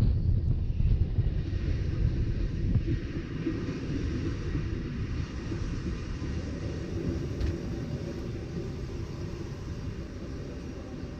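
Rhaetian Railway train running on the track, a steady low rumble with some wind noise, slowly getting quieter.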